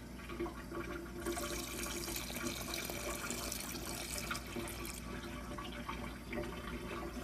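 Wire whisk stirring a thin maltodextrin and water mix in a stainless steel saucepan: liquid sloshing and splashing with the whisk wires scraping and clicking against the pan. The stirring is brisker and louder from about one to five seconds in.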